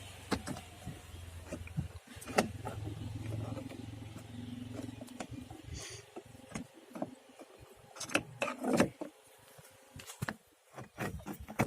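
Scattered clicks and knocks of a Maruti Suzuki Alto's door trim pad being handled and pressed back onto the door, the loudest about two and a half seconds in and around nine seconds in. A low steady hum runs under the first half and stops.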